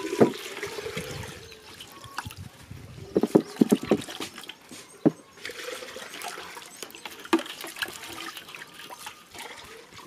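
Red onions and other whole vegetables being set down and shifted on a thin aluminium tray, giving scattered sharp knocks and clatters, several in quick succession a little after three seconds in.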